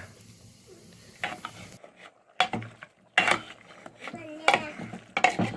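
A handful of irregular sharp knocks and clatters, a second or so apart, with a brief gap a little before the middle.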